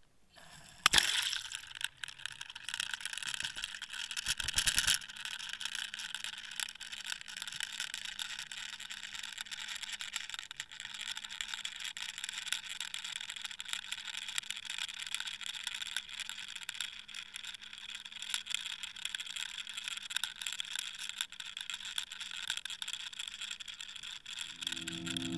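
Underwater noise picked up by a camera on a fishing line: a steady hiss and crackle with a faint low steady hum. There is a sharp knock about a second in and a short rattling burst around four to five seconds in.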